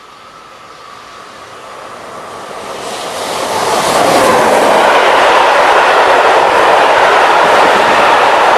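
Freight train of tarpaulin-covered wagons, hauled by an SNCF BB 26000-series electric locomotive, approaching and passing at speed. It grows louder over the first four seconds, then holds a loud, steady rush of wheels on rails as the wagons go by.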